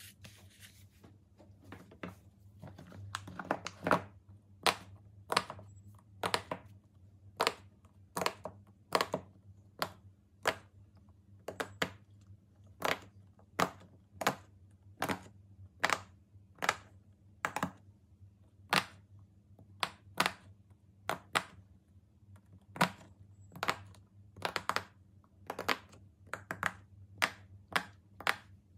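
Bubbles of a silicone pop it fidget toy being pressed in one at a time, making a steady run of sharp pops at a little under two a second.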